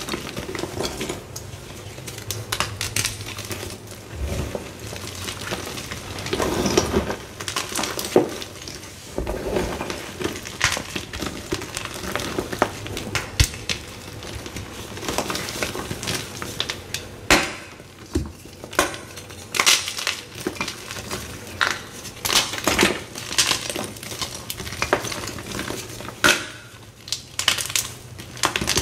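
Blocks of Z Athletic magnesium gym chalk crushed and crumbled by hand, giving many sharp, irregular crunches and crackles as the pieces break apart.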